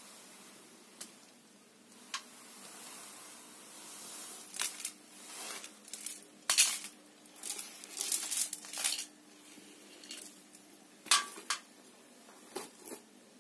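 A beaded hanging ornament's hard beads clinking and rattling against a tiled floor in several short bursts of clatter, the sharpest about six and a half and eleven seconds in.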